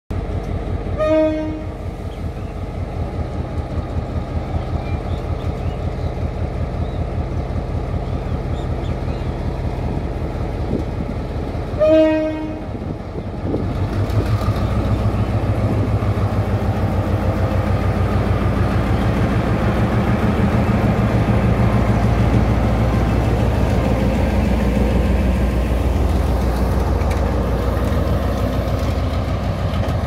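GM (EMD) G22 diesel-electric locomotive's 12-cylinder two-stroke diesel engine running with a steady low throb, its horn giving two short blasts, about a second and about twelve seconds in. From about fourteen seconds the engine grows louder as it throttles up and the train pulls away.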